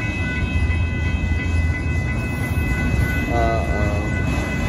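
Union Pacific freight train of autorack cars rolling slowly through a grade crossing: a steady low rumble from the cars with a continuous high-pitched squeal over it.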